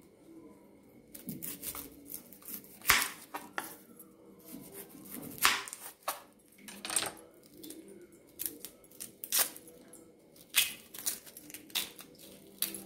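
Dry, papery red-onion skin crackling and rustling as it is peeled off with a kitchen knife, with irregular sharp clicks and taps of the knife and onion on a plastic cutting board.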